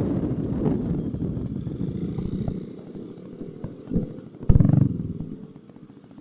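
Motorcycle engine fading away, its note sinking slowly in pitch. A short loud burst comes about four and a half seconds in.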